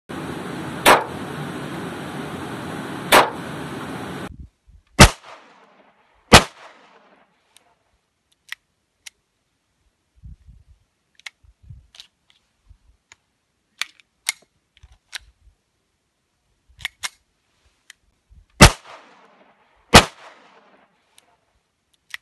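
Handgun shots. Two shots about two seconds apart over a steady background hiss; then, after a cut, semi-automatic pistol shots, two about a second and a half apart and two more near the end, each with a short fading echo. Faint clicks come between them.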